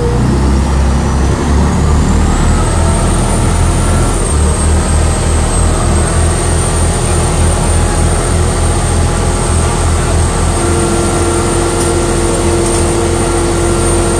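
Passenger river boat's engine running loud under way, a heavy steady rumble heard on board. A thin high whine rises in pitch over the first few seconds and then holds steady, and a steadier humming note joins about ten seconds in.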